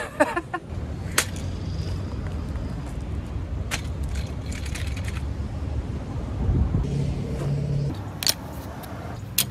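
A few sharp clicks and clacks as a folding metal hammock-chair frame is set up and a steel carabiner hook is clipped onto a frame post, the last two close together near the end, over a steady low rumble.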